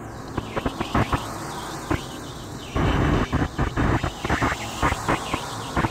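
Road and engine noise inside a car at highway speed: a steady low drone, broken by many short, irregular bursts of noise on the microphone, with a denser patch of noise about three seconds in.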